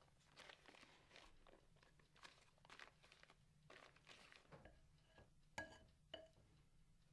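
Faint scraping and rustling as softened butter is worked into a mixing bowl of sugar, then two light ringing clinks near the end.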